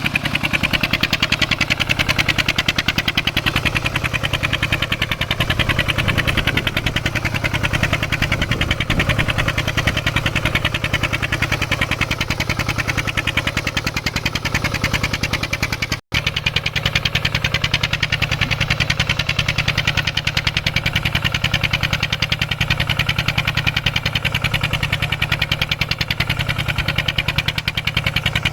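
Mini farm tractor engine running steadily with a fast, even beat while plowing farmland. The sound drops out for an instant about halfway through.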